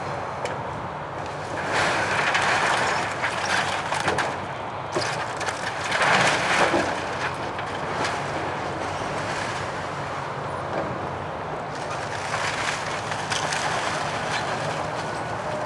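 Komatsu hydraulic excavator running while it breaks up a collapsed wooden house: a steady engine drone under crunching and cracking of splintering timber. The crunching surges loudest about two seconds in and again about six seconds in.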